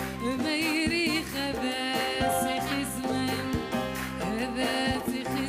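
A woman singing a Moroccan popular song in a melismatic style with vibrato into a handheld microphone, over instrumental accompaniment with a steady beat.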